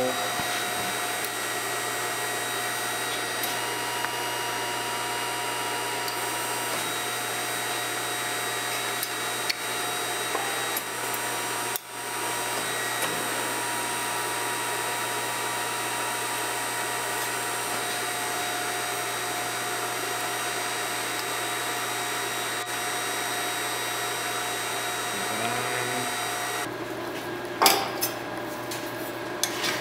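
Ironworker's electric motor running with a steady hum. Near the end it stops and a few sharp metal knocks follow.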